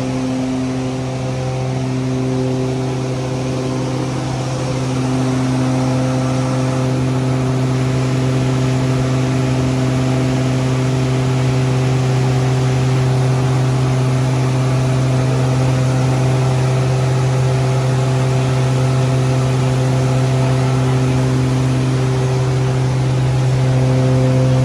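Electric feed grinder (hammer mill) running steadily, a continuous loud hum with a strong low drone and several steady higher tones over it.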